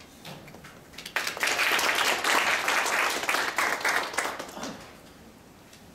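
Audience applauding. The clapping starts about a second in, holds for about three seconds, then dies away.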